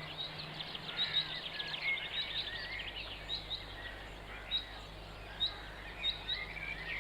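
Birds chirping and twittering outdoors, many short high calls, over a faint steady low hum.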